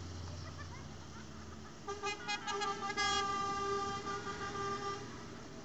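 A vehicle horn from the passing tractor and lorry procession sounds a quick run of short toots about two seconds in, then one long blast of about two seconds. Before the horn, the low running of a passing engine is heard.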